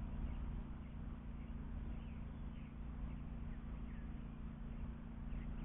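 Lawn mower engine running steadily in the background, a low even hum, with no longer any cutting.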